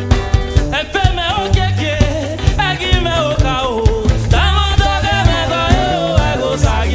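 Live gospel praise band music: electric guitar over a bass line and a drum kit, with a wavering melodic lead that comes in about a second in.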